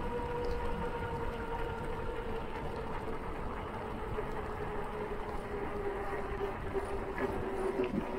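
Riding noise of a loaded touring bicycle rolling on asphalt: wind rushing on the microphone and a steady hum that sinks slowly in pitch.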